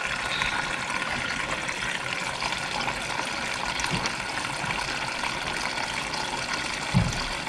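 Water running steadily from an LG refrigerator's door dispenser into a plastic pitcher, flushing a newly installed water filter. A brief low thump comes near the end.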